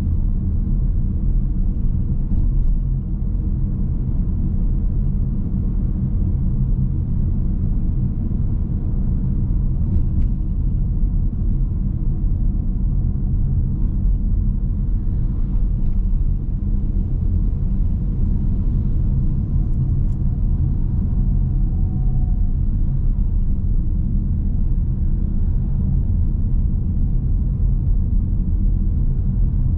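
Car driving at steady town speed: a continuous low rumble of engine and tyre noise on the road, with a few faint ticks.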